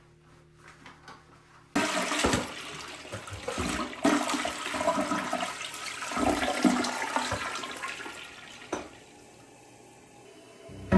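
Toilet flushing: a sudden rush of water about two seconds in that gurgles and tapers off over several seconds.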